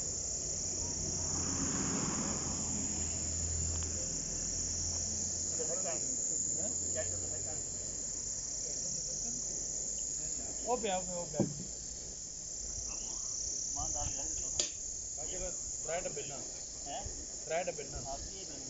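A steady, high-pitched insect chorus, with faint voices talking now and then in the background.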